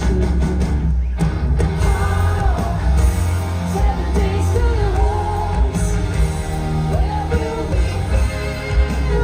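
Live metal performance: a female lead singer holding sung lines over a loud, heavy rock band with thick bass and drums.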